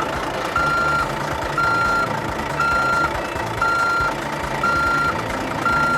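Truck reversing alarm beeping about once a second, each beep a steady high tone about half a second long, over a continuous engine rumble.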